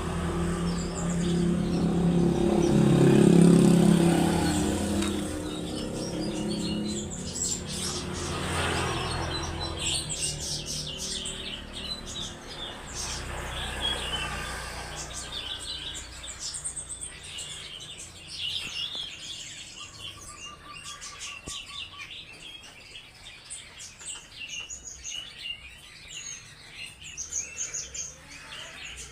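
Small birds chirping, with many short high calls scattered throughout and a brief trilled note about two-thirds of the way in. A low rumble sits under the first several seconds and fades out.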